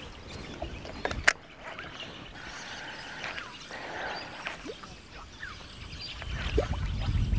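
Light splashing of a Skitter Pop surface popper lure being worked across the water, with short bird chirps. A single sharp click comes about a second in, and a low rumble starts near the end.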